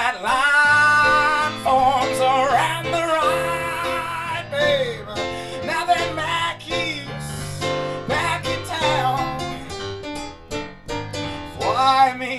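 A man singing long, wavering held notes into a microphone, accompanied by chords on a Yamaha electric keyboard.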